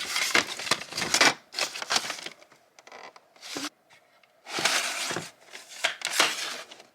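Plastic CD jewel cases being handled, with clacks and scraping rustles in bursts as they are pulled from the shelf, turned over and shuffled.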